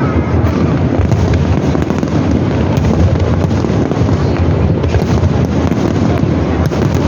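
Aerial fireworks going off in quick succession, with loud bursts and sharp cracks running together into a continuous rumble.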